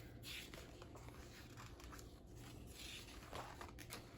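Faint rustle of paper as a picture-book page is turned, with soft swishes and a few light clicks near the end.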